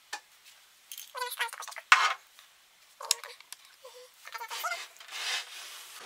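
Screwdriver working the screws out of a microwave oven's sheet-metal casing: short, irregular bursts of squeaking and scraping as the screws turn, with one sharp louder click about two seconds in.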